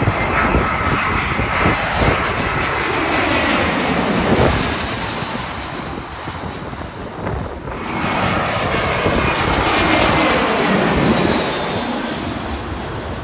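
Twin turbofan engines of a British Airways Airbus A320-family airliner on final approach, passing low overhead with gear down. A loud rushing engine noise carries a whine that drops in pitch as the jet goes over. The sound dips briefly about halfway, then swells and falls again.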